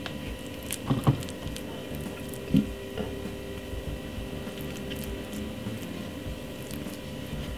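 Spoon pressing soft mashed potato and vegetable filling into a hollowed baked potato skin: quiet squishing and scraping, with two soft knocks, about a second in and again about two and a half seconds in.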